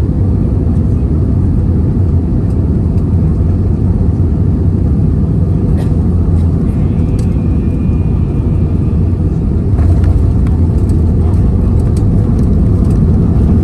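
Airbus A320 cabin noise during the landing: a steady deep rumble of engines and airflow heard inside the cabin. A few sharp clicks come about six seconds in, and the rumble grows louder about ten seconds in.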